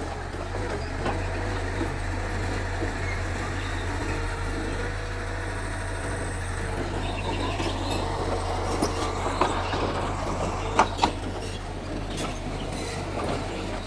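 Mitsubishi bulldozer's diesel engine running steadily, with a few sharp knocks about nine to eleven seconds in.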